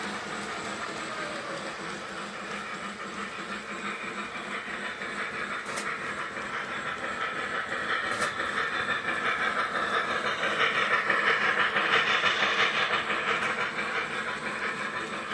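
Lionel Polar Express toy electric train running on its track, a steady rolling clatter of wheels and motor that grows louder as the locomotive passes close, about two-thirds through, then eases off.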